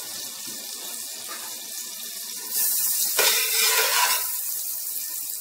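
Butter melting and sizzling with cardamom pods in a stainless steel pot, a steady hiss that grows louder about halfway through as it is stirred with a slotted spatula, with a light click of the spatula on the pot.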